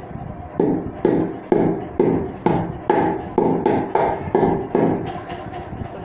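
About ten knocks, roughly two a second, on the hollow metal stand tube of a pedestal fan, each with a brief ring: the tube's top rim is being beaten inward so a small DC motor will sit tight inside it.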